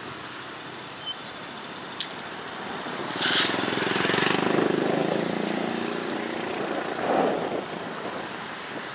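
A motor vehicle's engine passing close by in traffic, swelling about three seconds in with a short hiss and fading away over the next few seconds, over steady outdoor street noise.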